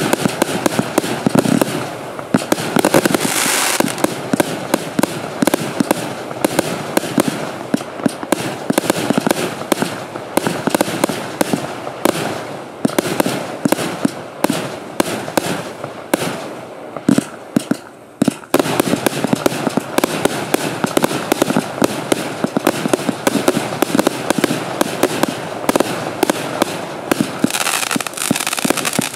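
Dragon TLCP412-B compound fireworks cake firing a rapid, continuous volley of shots and bursts. The firing thins out briefly about seventeen seconds in, then comes back dense.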